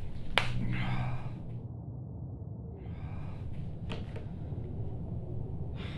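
A person sighs and breathes out heavily, with a sharp click just before the sigh and another about four seconds in, over a steady low hum.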